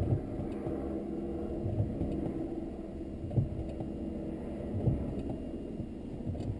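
Ford Capri's modified 2.0-litre Pinto four-cylinder engine idling steadily, heard from inside the cabin, with a dull thump about every second and a half.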